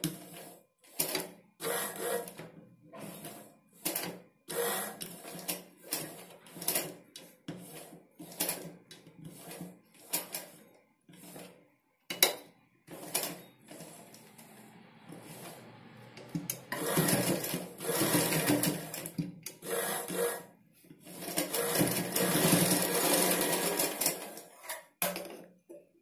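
Domestic straight-stitch sewing machine stitching blouse fabric. It runs at first in short spurts of a few stitches each, roughly one a second, then in two longer steady runs of several seconds each near the end.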